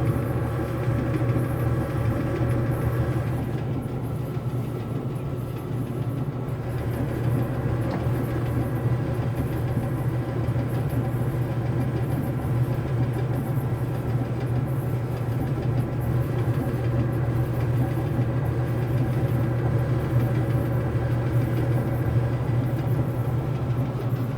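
Samsung electric clothes dryer running with its top panel off: the drum motor and blower give a steady, even hum. It is on a test run after a new heating element and thermostat were fitted, and it is heating properly.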